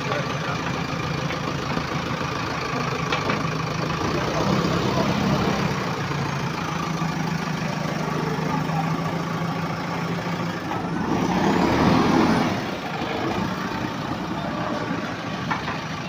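JCB 3DX backhoe loader's diesel engine running steadily as the machine moves through mud, growing louder for about a second and a half around eleven seconds in before settling back.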